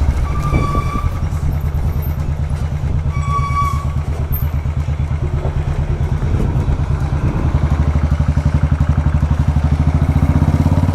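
Royal Enfield 350's single-cylinder engine running steadily on the move, its regular thump pulsing more plainly in the second half. A vehicle horn sounds twice, briefly: about half a second in and again about three seconds in.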